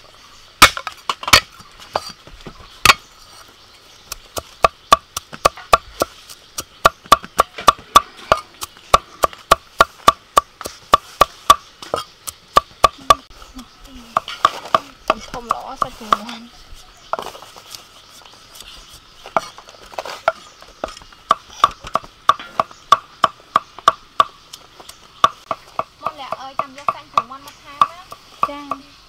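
A cleaver chopping garlic on a thick round wooden chopping board: a long run of sharp, repeated strikes, about two to three a second, with a few short pauses.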